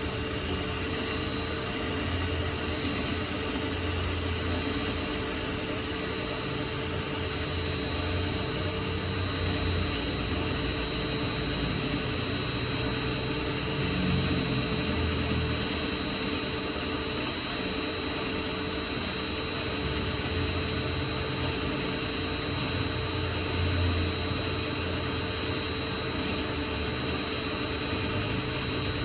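Mini bench lathe running steadily with a constant high whine, turning an iron workpiece.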